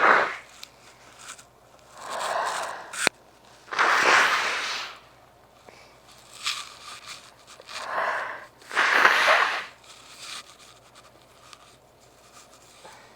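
A person sneezing twice during a sneezing fit, each sneeze led by a shorter noise about a second before, with a sharp click in between. The fit comes from a nose left over-sensitive by efforts to clear congestion.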